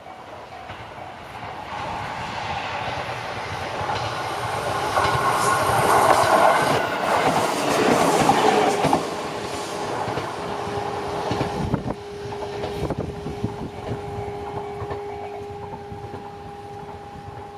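An electric train on the JR Gotemba Line passing over a level crossing. Its rumble and wheel clatter over the rail joints build up, are loudest about six to eight seconds in, then fade as it moves away. A steady two-note tone sounds through the second half.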